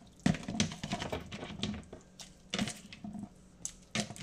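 Chunks of bitter gourd dropped one after another into soup in a ceramic slow-cooker crock: a string of irregular plops and knocks, the loudest about a third of a second in.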